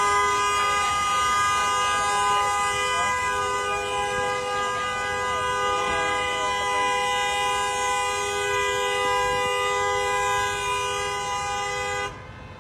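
A vehicle horn held down in one long, unbroken blast, two notes sounding together, cutting off suddenly near the end.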